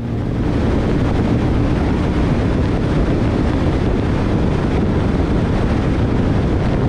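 2020 Indian Scout Bobber motorcycle at highway speed: heavy wind rushing over the camera microphone, mixed with engine and road noise.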